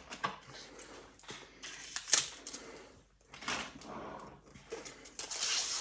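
Paper pages and a laminated cover of a disc-bound planner being handled and turned, giving scattered rustles and taps, with one sharp click about two seconds in.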